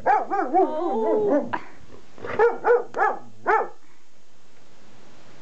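English Springer Spaniel giving a long howling "baroo" whose pitch wavers up and down, then four short barks about two seconds in.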